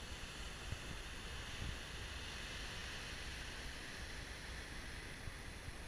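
Steady rush of sea surf breaking on rocks, with wind rumbling on the microphone.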